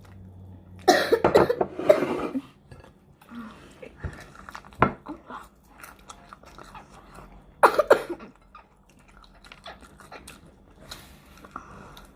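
A person coughing in rough bursts, about a second in and again near eight seconds, with chewing and mouth noises from eating spicy fried chicken hot wings in between.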